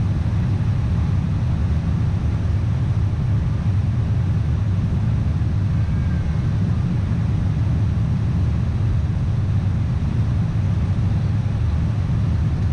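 Steady low rumble of a Boeing 747's four engines and rushing airflow, heard inside the cabin as the jet climbs out after takeoff.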